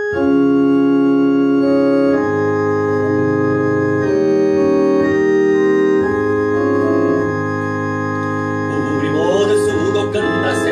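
Casio Privia digital keyboard played with an organ voice: held chords of a hymn introduction, changing about every two seconds. Voices start singing about nine seconds in.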